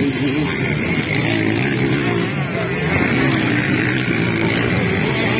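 Motocross dirt bike engines revving, their pitch rising and falling continuously.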